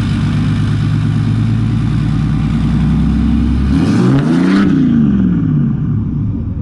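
Dodge Ram's 6.7-litre Cummins turbo-diesel idling, heard at its 10-inch exhaust tip. About four seconds in it gives one quick rev that rises in pitch and drops back to idle within about two seconds.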